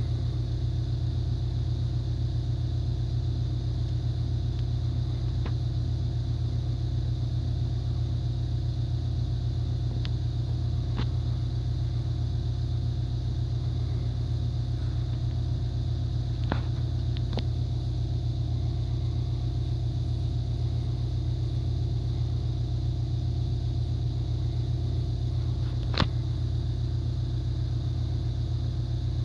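A steady low machine hum, with a few faint clicks scattered through and one sharper click near the end.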